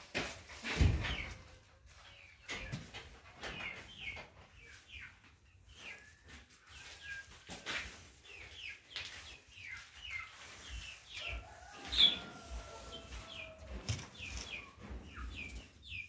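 Poultry chirping in short, high, repeated calls throughout, with scattered knocks, a loud low thump about a second in and a sharp knock about three-quarters of the way through.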